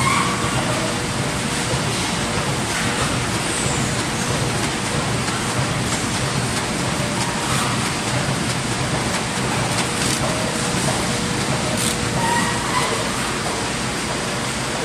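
A large ZYKM IV printing machine running in production, giving a steady, even mechanical noise with a faint constant tone.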